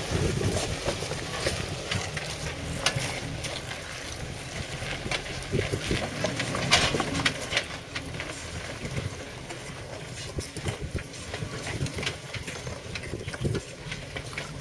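Jeep Wrangler Rubicon crawling slowly over rocks: a low engine rumble with the tyres crunching and knocking over stones, in scattered sharp clicks and knocks. The rumble is stronger in the first half and fades somewhat later on.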